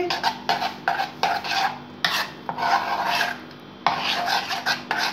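Thin flour batter being stirred by hand in a steel bowl: quick swishing strokes, about three a second for the first two seconds, then longer sweeping stirs.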